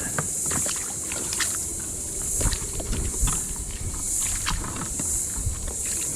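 A high insect drone that swells and fades about once a second, with scattered small clicks and knocks over it.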